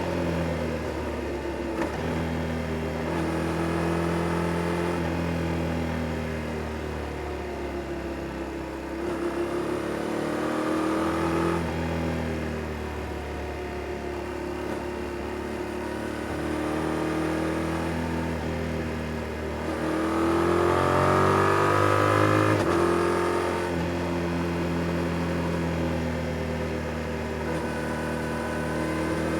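Yamaha Tracer 7 GT's stock-exhaust 689 cc parallel-twin engine being ridden through bends, its pitch rising and falling as the throttle opens and closes. The hardest pull comes about two-thirds of the way in, climbing for a couple of seconds before dropping suddenly.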